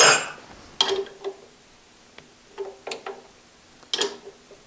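A handful of sharp metal clinks spread over a few seconds, each ringing briefly, as a combination wrench is handled against the lower blade guide of a 4x6 horizontal bandsaw.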